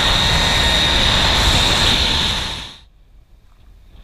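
Zip line trolley running fast along its steel cable: a loud, steady rushing whir with a high, steady whine. It cuts off about two and a half seconds in.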